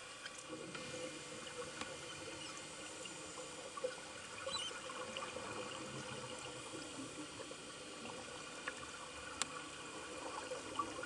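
Underwater ambience: a steady faint hiss scattered with small sharp clicks and crackles, with a soft trickle of water or bubbles.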